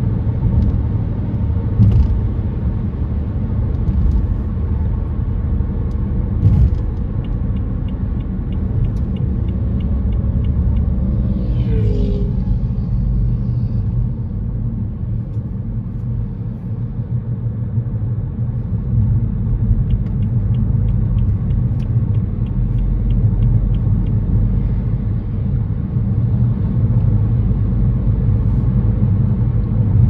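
Car driving on a city road: steady low road and tyre rumble. Twice a run of quick, even ticking is heard, and a brief wavering squeal about 12 seconds in.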